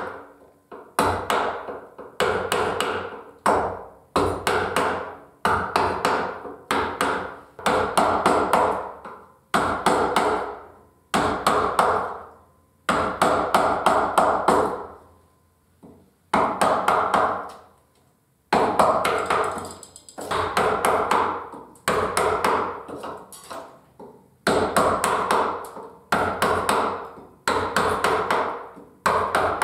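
Wooden carver's mallet striking a carving gouge as it cuts into cherry wood. The strikes come in quick sets of a few taps, each set fading within about a second, with short pauses between.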